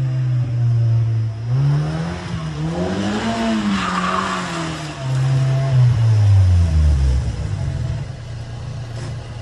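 Mazda MX-5 Miata's four-cylinder engine revving up and down as the car is thrown around the lot, with a brief patch of tyre noise about four seconds in. Near the end the revs fall away as the car rolls up close and settles to a low idle.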